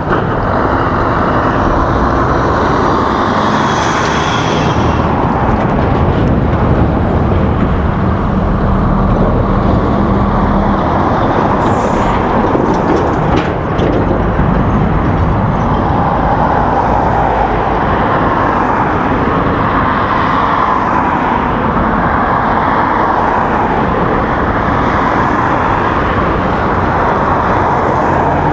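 Steady road vehicle noise from cars and heavier vehicles, with a low engine hum for a few seconds about a third of the way in.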